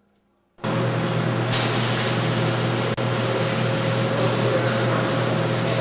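Machine-shop machinery running: a loud, steady hiss with a low hum, starting suddenly just over half a second in, with a momentary break about three seconds in.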